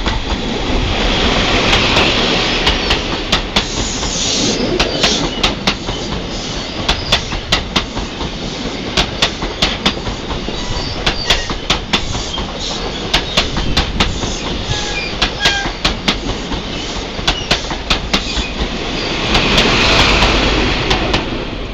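East Midlands Trains HST passing at speed: the leading Class 43 power car's diesel engine swells loudly as it goes by, then the Mark 3 coaches' wheels click over the rail joints in a rapid clickety-clack, often in pairs. About 19 seconds in, the rear power car's engine swells loudly again as it passes.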